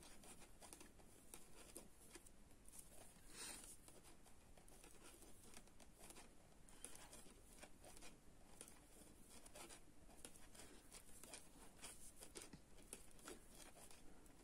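Near silence with faint, irregular light ticks and rustles from thin metal knitting needles working fine yarn.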